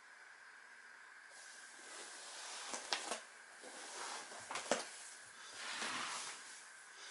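Rustling and shuffling as a person shifts across vinyl exercise mats and reaches for the camera, with two sharp clicks partway through and handling noise on the microphone near the end, over a faint steady hiss.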